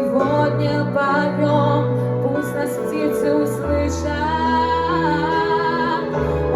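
Music: a slow song with a sustained, wavering melody line over instrumental backing; a deep bass note comes in about four seconds in.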